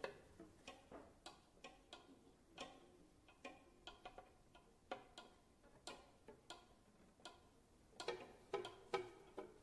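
Faint, sparse cello pizzicato: single plucked notes at uneven intervals, a few a second, a little louder and closer together near the end.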